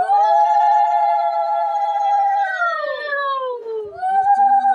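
Two conch shells (shankha) blown together in long, steady, high blasts. Each blast ends with a falling note about three seconds in, and a new blast starts near the end. The conch is sounded at the baby's first feeding of rice.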